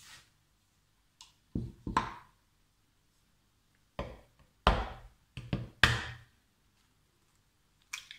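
Sugar poured briefly into a mixing bowl, then a run of separate knocks and thuds of kitchenware against the bowl and worktop, the loudest a little past the middle. Near the end, a short sharp crack of an egg being broken.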